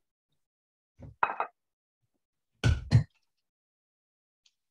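Oven door and hot roasting pan being handled as a rack of lamb comes out of the oven: a few light knocks about a second in, then two heavy thuds in quick succession a little past halfway.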